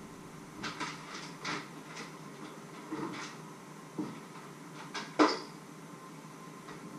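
Rummaging in a kitchen: a string of light knocks and clatters as things are moved about, with a louder knock about five seconds in.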